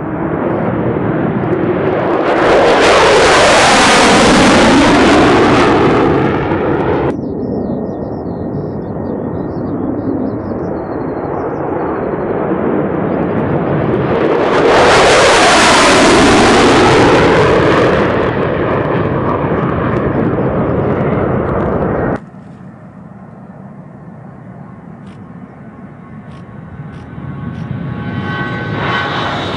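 Single-engine F-16 fighter jets taking off, their jet noise swelling twice to a loud peak as each one passes, each time cut off suddenly. Then a quieter stretch, and near the end the twin turbofans of an A-10 Warthog rise with a high whine that slides down in pitch.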